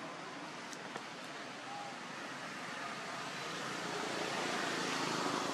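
Steady outdoor background noise that swells in the last couple of seconds, with two faint clicks about a second in.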